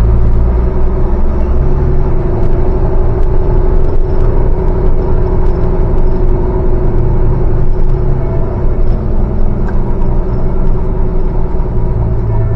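Saviem S45R bus's diesel engine running steadily under way, heard from the driver's seat inside the cab, with a few light rattles.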